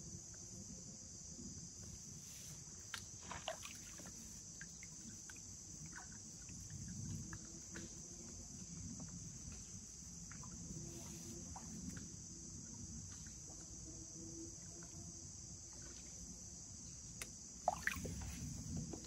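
Water sloshing in a plastic gold pan as it is swirled and dipped in a shallow creek while the gravel is rinsed out, with small ticks of grit against the pan and a louder splash near the end. A steady high-pitched insect drone sits behind it.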